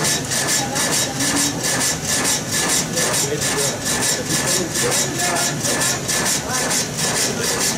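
Vertical reciprocating frame saw (sash saw) running and cutting through a log, its blade rasping in an even rhythm of about three strokes a second, with a steady thin whine from the mechanism.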